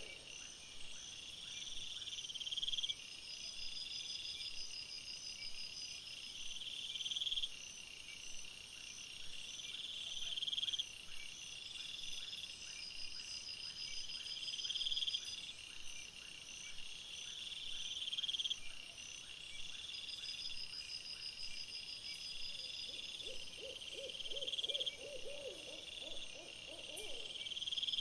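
Night chorus of insects: a pulsing trill comes in bursts of a second or two, repeating every couple of seconds, over a steady higher chirring. Near the end a lower, rapid warbling trill joins in for a few seconds.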